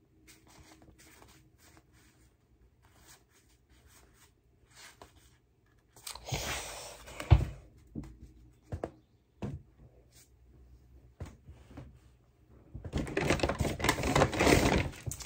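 Paper handled close by: a short rustle with one sharp knock about six to seven seconds in, then a longer stretch of crinkling and rustling near the end, in between only faint small clicks.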